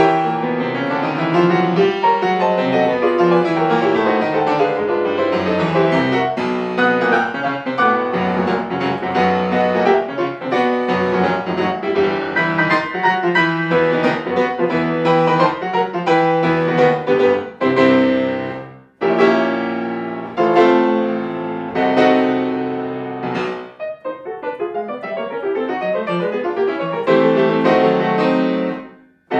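Solo grand piano playing a loud, dense classical passage. About two-thirds of the way through it turns to separate heavy chords that ring and die away, with a brief break at each one and again near the end.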